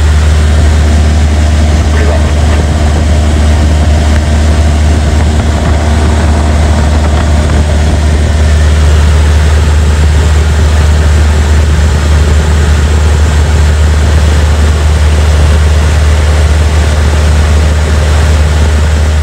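Cessna 172's piston engine and propeller running steadily in flight, heard loud from inside the cockpit as a constant low hum.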